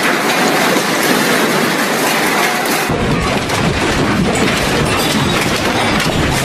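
A building shaking in a strong earthquake: a dense, continuous rattling and clattering of furniture and fittings, with a deep rumble joining about three seconds in.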